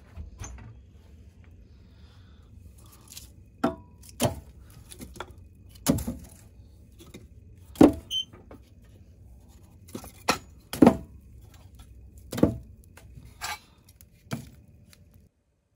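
About a dozen sharp, irregular knocks and clicks over a faint low rumble; they stop shortly before the end.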